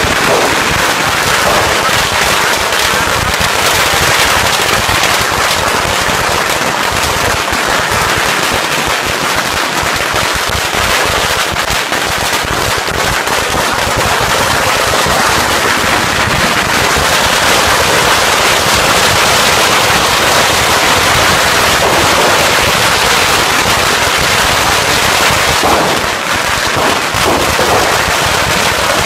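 Long strings of firecrackers exploding in a dense, unbroken crackle, easing briefly once near the end.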